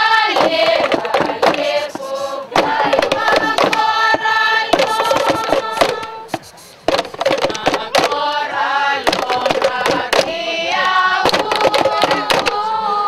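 A group of women's voices singing a song together, with sharp percussive clicks running under the singing. The singing breaks off briefly about six and a half seconds in.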